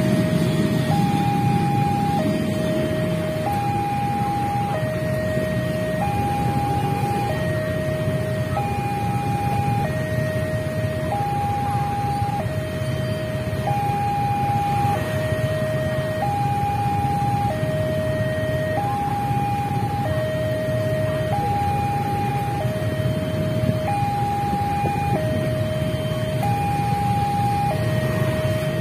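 Railway level-crossing warning alarm sounding its electronic two-tone signal, a higher and a lower note alternating about once a second each, signalling that the barrier is down for an approaching train. Beneath it runs a steady low rumble of engines from waiting road traffic.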